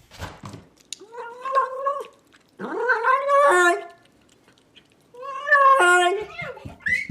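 Domestic cat making three drawn-out, odd-sounding meows, each a second or more long and dropping in pitch at the end.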